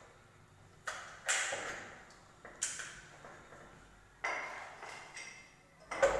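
Sharp metallic knocks on an aluminum door frame and door, five of them at uneven intervals, each ringing briefly before it fades.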